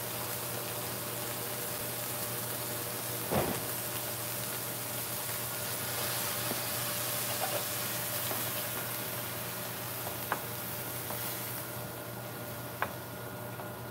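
Squash and long beans sizzling in a frying pan with a little broth just added, a steady hiss that eases slightly near the end. A knock about three seconds in and a couple of light wooden-spoon taps later.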